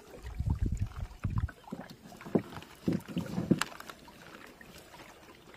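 A wet fishing net being hauled hand over hand out of the river into a boat: water splashing and dripping, mesh rustling and a few sharp knocks, with low thumps in the first second and a half. It goes quieter after about four seconds.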